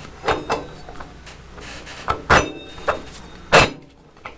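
Sharp metal knocks and clinks as a cloth buffing wheel's metal hub is fitted onto the converted drum sander's shaft against the flange. There are about half a dozen, the loudest a little over two seconds in and about three and a half seconds in.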